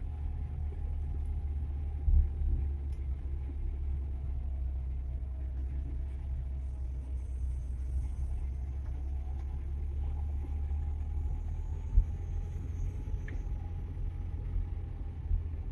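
Suzuki Carry pickup driving down a steep, narrow road, heard from inside the cab: a steady low rumble of engine and road noise with a faint wavering whine. Two sharp thumps stand out, about two seconds in and near twelve seconds.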